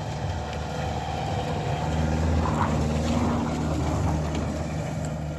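Nissan X-Trail's engine running under load while climbing a hill, growing louder around the middle and easing off toward the end.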